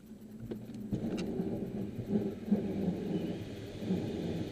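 Cockpit noise of a glider being snatched into a winch launch: an uneven rumble and rattle of the airframe and rushing air, building quickly in the first second as it accelerates down the runway and lifts into the climb. A few sharp clicks near the start.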